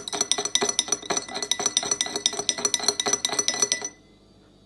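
Teaspoon stirring a salt-and-soda gargle solution in a glass of warm water, clinking quickly and evenly against the glass about six times a second, with a faint ring from the glass. The stirring stops about four seconds in.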